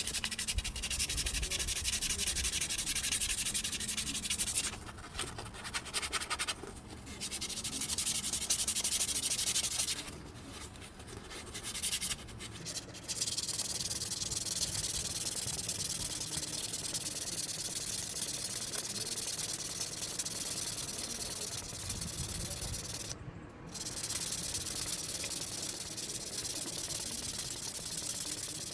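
Abrasive rubbing, like sandpaper worked over metal, in a steady hissing scrape. It breaks off for short pauses three times.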